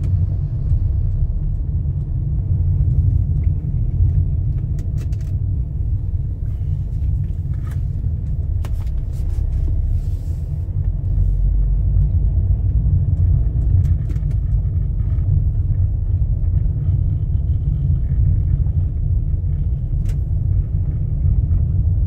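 Steady low rumble of a car driving slowly along a paved street, with a few faint clicks.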